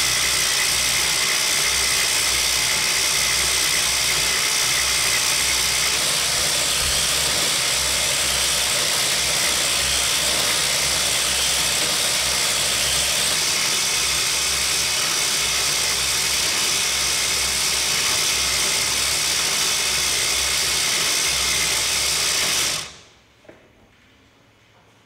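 Home-built circular knitting machine with 3D-printed parts running: an electric motor turns the plastic gears and needle cylinder with a steady mechanical running noise. It stops abruptly near the end.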